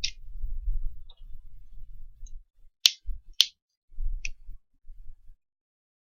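Small tools clicking and tapping at a repair bench, with two sharp clicks about half a second apart near the middle and lighter ticks at the start and a little after four seconds. Low thumps of handling come and go underneath.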